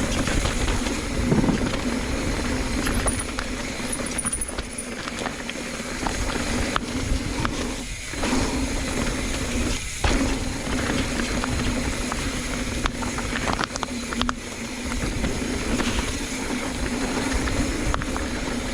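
Mountain bike riding fast down a dirt trail: a steady rushing noise with frequent rattles and knocks as it runs over bumps.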